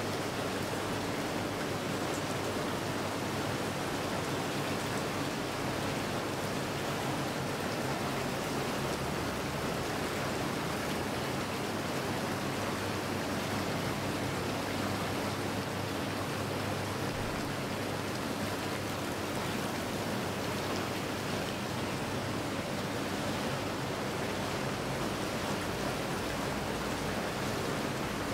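BW-07 hot tub running its jets, with fountain jets arcing into the pool: a steady rush of churning, splashing water. A faint steady hum lies underneath.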